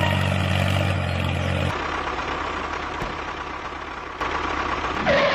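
Tractor engine running steadily with a low, even note; about two seconds in the sound changes to a thinner, noisier running sound, which grows louder near the end and cuts off suddenly.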